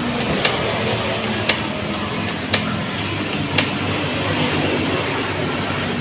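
Canon MG2570S inkjet printer running its print-head cleaning cycle: a steady mechanical whir with a sharp click about once a second, four times, the clicks stopping after about three and a half seconds.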